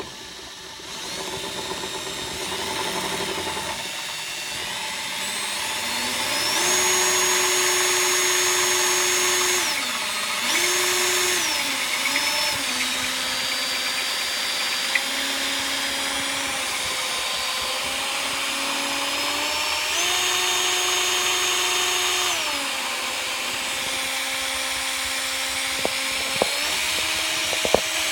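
Electric drill spinning the shaft of a removed Ford Ranger 3.0 V6 camshaft synchronizer, a test to reproduce its chirp and squawk. The motor whine speeds up and slows down several times as the trigger is worked. A few sharp clicks come near the end.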